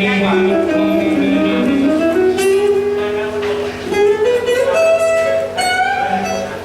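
Live band music with guitar, played as a sound check: a melody line slides up and down in pitch over held chords.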